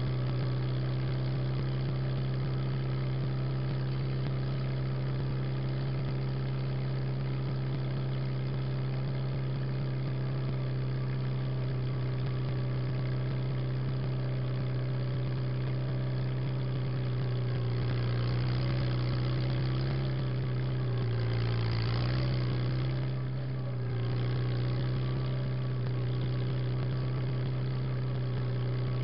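Farmall Super H tractor's four-cylinder engine running at a steady speed. About three-quarters of the way through its pitch briefly sags under load and then recovers.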